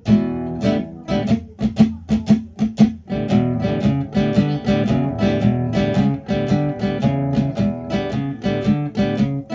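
Nylon-string classical guitar with a cutaway, played fingerstyle: separate plucked chords for about the first three seconds, then a denser, quicker picked pattern of notes.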